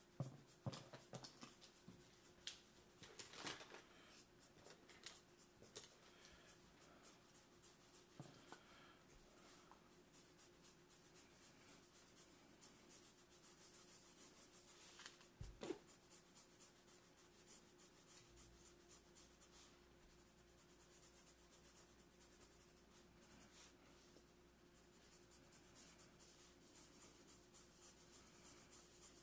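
Faint scratching of felt-tip markers stroked lightly across paper in quick, repeated hatching strokes, with a few soft knocks, the loudest about halfway through.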